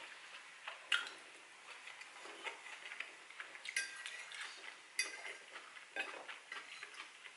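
Metal fork clinking and scraping against a ceramic half-bowl plate while eating, in scattered sharp clicks, the loudest about a second in.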